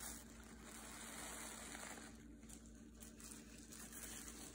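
Faint rustling of plastic bubble wrap as it is pressed onto a paper cutout and peeled off, over quiet room tone with a low steady hum.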